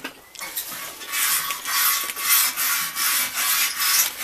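Repeated rubbing or scraping strokes by hand, roughly two a second, starting about a second in.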